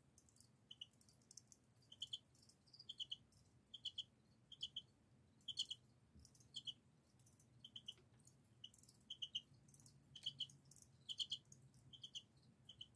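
Male crickets chirping by rubbing their wings together: short chirps of two or three quick pulses on one high note, about one a second and unevenly spaced, as two crickets call. Faint high ticks sound between the chirps.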